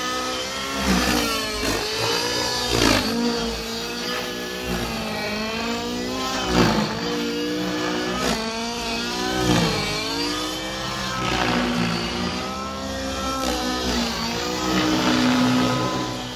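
Radio-controlled nitro model helicopter flying aerobatics: its engine and rotors run continuously, the pitch rising and falling again and again as it swoops and turns.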